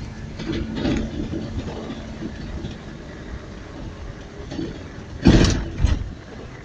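Car engine running with a steady low rumble, heard from inside the cabin. About five seconds in, two loud short rubbing bumps as the phone knocks against clothing.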